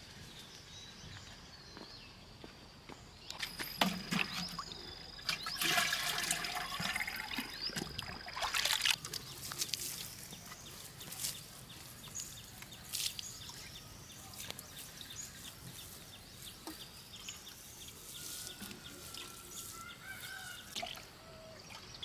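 Water pouring and trickling, heaviest for a few seconds about four seconds in, then lighter trickles and scattered drips.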